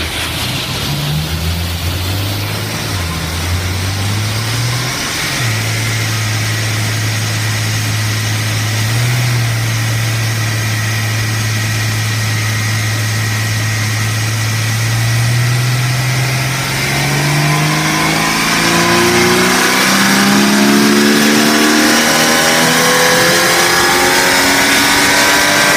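Car engine on a chassis dynamometer during a baseline power run, breathing through a full exhaust that the owner calls crappy. Its revs waver for the first few seconds, hold steady for about ten seconds, then climb steadily in pitch through the last ten seconds as the engine pulls toward the top of its rev range.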